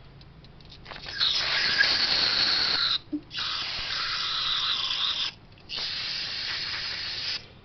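Aerosol can of brake cleaner hissing in three bursts of about two seconds each, with short breaks between them, starting about a second in, as the inside of an old drum-brake wheel cylinder is sprayed clean.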